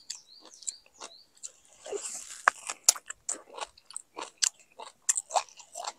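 A person biting into and chewing a ripe mango close to the microphone: many short, irregular smacks and clicks of eating.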